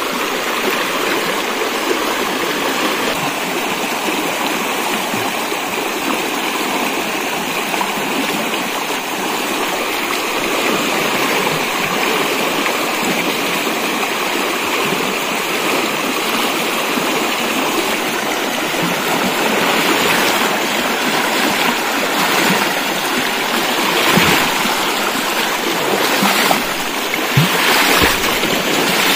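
Shallow river rushing steadily over rocks. A few brief knocks come in the last ten seconds.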